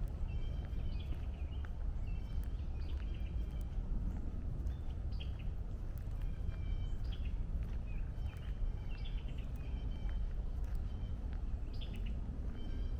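Small birds chirping in short calls that recur every second or so, over a steady low rumble of distant highway traffic.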